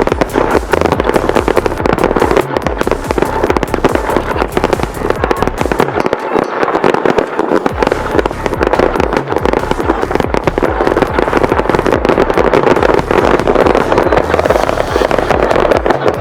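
Fireworks going off in a dense, continuous run of rapid bangs and crackling, without a break.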